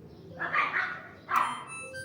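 A dog barks twice, about a second apart.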